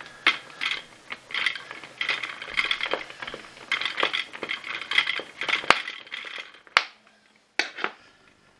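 Screwdriver turning a clockwise-undoing screw out of the centre of a vacuum floor head's drive cog: a run of quick rasping, ratchet-like clicks, then a few separate sharp clicks near the end.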